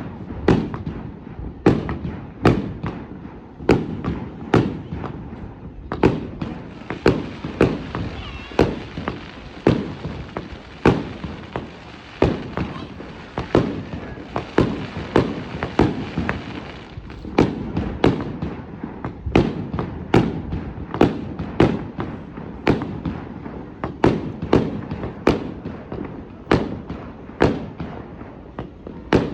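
Fireworks display: aerial shells bursting in a continuous barrage, more than one bang a second, each with an echoing tail over a low rumble.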